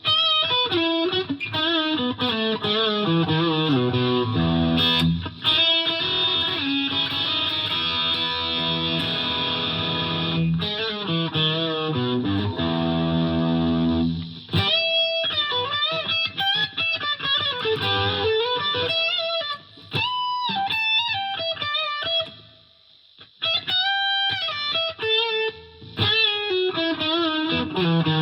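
Gibson Les Paul Classic electric guitar played through a Fender Mustang LT50 amp on an overdriven drive tone. Sustained chords and sliding notes give way, about halfway through, to single-note lead phrases with short pauses.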